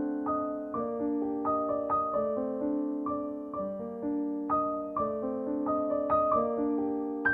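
Background music: a gentle piano melody over held chords, with new notes struck at an even pace of about two a second.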